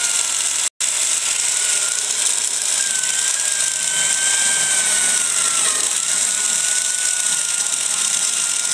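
Old electric drill running steadily as it bores a small pilot hole into the end grain of a wooden beam: a high motor whine over a steady hiss, sagging slightly about six seconds in. The sound drops out for an instant under a second in.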